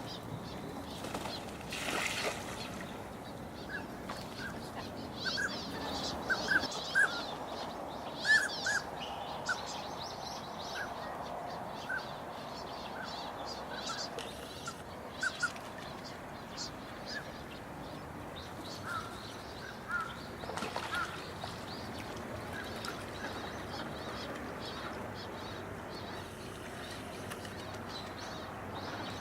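A flock of wintering birds calling, many short repeated calls over a steady background hiss, busiest in the first third and again briefly about two-thirds of the way through.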